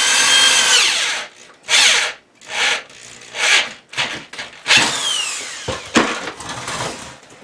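Cordless drill driving a screw into a metal bracket: one longer run whose motor whine rises and then falls, followed by several short trigger bursts and a couple of sharp clicks.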